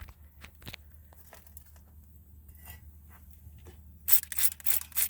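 Rubber conditioner sprayed onto the drive shaft boot in a quick run of five or six short hissing bursts near the end, after a few faint handling clicks.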